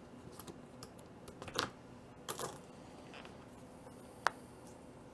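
Faint, scattered clicks and taps of playing cards and small game tokens being handled on a tabletop, with a short rustle about two and a half seconds in and one sharp click a little after four seconds.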